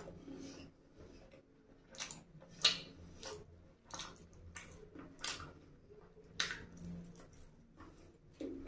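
Close-up wet chewing of chicken lollipop meat: irregular smacks and squelches of the mouth at a slow uneven pace, the sharpest one about two and a half seconds in.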